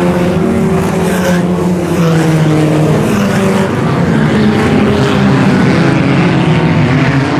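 A field of IMCA Sport Compact race cars running hard together as they take the restart, several engines at once with their pitches overlapping and shifting.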